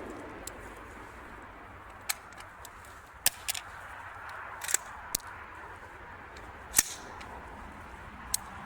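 About seven short, sharp cracks at uneven intervals, two of them close together about three seconds in and the loudest near two-thirds of the way through, during a round of AR-15 rifle fire.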